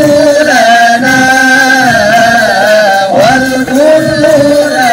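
An Arabic Islamic devotional song: a singer holds long, wavering, ornamented notes over instrumental backing.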